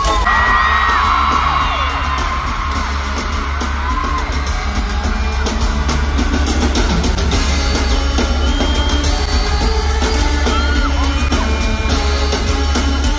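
Loud live concert music with heavy bass and drums, over which fans scream in high, sliding cries, most strongly in the first couple of seconds and again briefly near the end.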